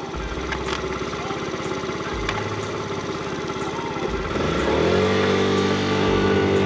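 Motor scooter engine running at low revs. About four seconds in, the revs rise quickly and then hold at a steady, higher pitch, a little louder.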